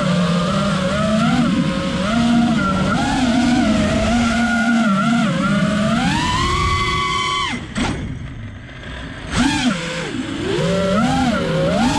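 FPV quadcopter's brushless motors and propellers whining, the pitch rising and falling with the throttle. About seven seconds in the pitch climbs and holds, then the sound drops away for about a second and a half before the motors come back in sharply.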